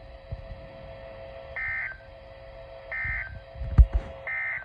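Emergency Alert System end-of-message data tones from a weather radio: three short, buzzy digital bursts about 1.3 s apart, marking the end of the warning. A steady hum runs underneath, and two sharp low thumps come just before the third burst.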